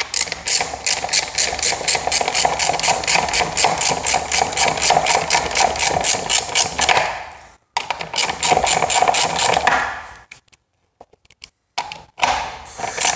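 Fast, even ratcheting clicks, about seven a second, from a motorized bicycle's pedal crank freewheel as the crank is turned by hand. The clicking stops briefly partway through, stops again for a couple of seconds, and a few clicks come back near the end.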